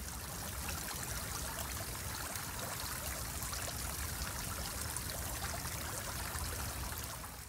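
Water trickling and splashing steadily down an ice-encrusted tiered garden fountain, fading out near the end.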